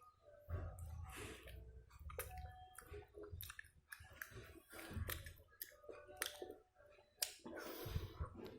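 Close-up eating sounds: chewing soy-sauce chicken, with many short, wet mouth clicks throughout.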